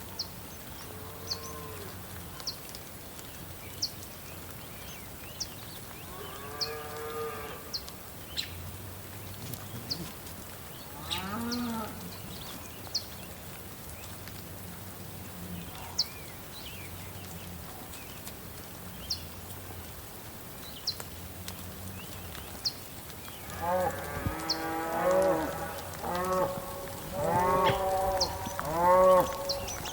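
Cattle mooing: a few separate drawn-out calls, then a run of several calls close together in the last few seconds. Under them runs a steady soft hiss of rain, with short high ticks about once a second.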